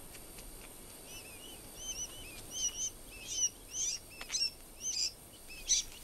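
Sandgrouse chicks peeping: a quick series of short, high cheeps, starting about a second in and growing louder.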